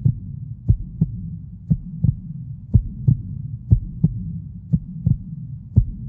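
Heartbeat sound effect: a double thump, lub-dub, about once a second over a low steady drone.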